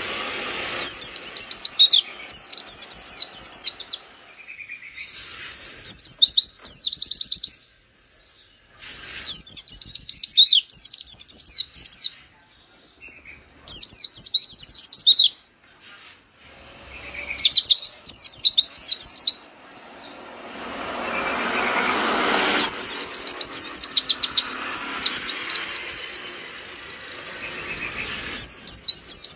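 White-eye (pleci) singing in rapid, high, chattering bursts of quick sharp notes. Each burst lasts a second or two, repeated about a dozen times with short pauses: the fast 'nembak' song of a bird in full song. A broad rushing background noise swells up around two-thirds of the way through.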